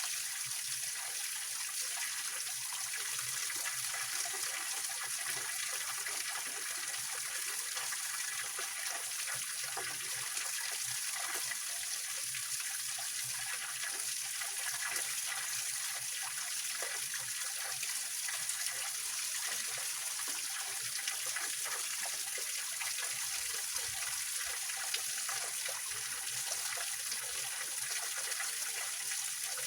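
Small waterfall on a mountain stream, water running and splashing over rocks in a steady, unbroken rush.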